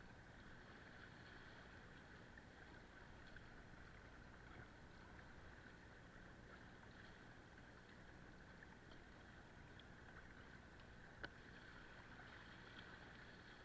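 Faint, steady wash of water and wind around a kayak on open water, with one sharp click about eleven seconds in.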